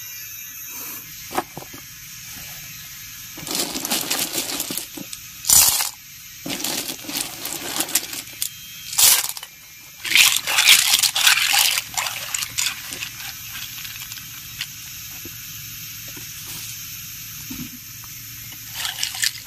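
Snail shells clattering and clinking against each other in irregular bursts, with a few sharper knocks and a little water sound.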